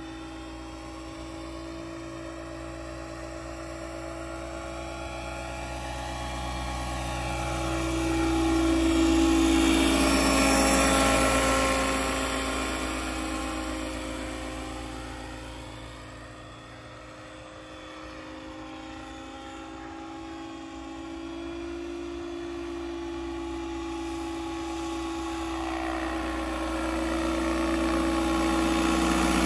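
Radio-controlled scale Huey model helicopter flying past: a steady whine of motor and rotor that grows loud and bends in pitch as it passes close about eight to eleven seconds in, fades, then grows again as it comes back near the end.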